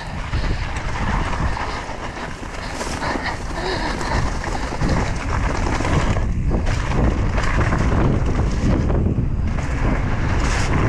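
Wind rushing over the microphone and tyre noise on a dirt trail while riding a mountain bike fast along the trail, with no engine heard. The rush thins briefly twice, about six and nine seconds in.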